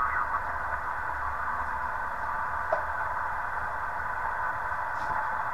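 Shortwave receiver static from a small HF QRP SDR transceiver's built-in speaker tuned across the 20 m band: a steady hiss with no station coming through, and a brief click about two and a half seconds in.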